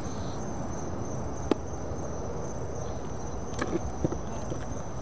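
Crickets trilling steadily in one high, constant tone over a low outdoor rumble, with a single sharp knock about one and a half seconds in and a few lighter clicks near the end.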